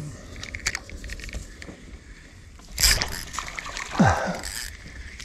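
A cast with a spinning rod: a sharp swish of the rod and line about three seconds in, then a splash about a second later as the baited hook lands in the water.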